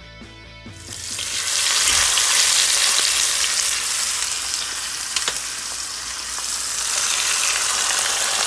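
Seasoned chicken thighs and legs sizzling loudly as they fry in hot oil in a pot, with a few sharp clicks over the sizzle. A music track ends just before the sizzling begins, about a second in.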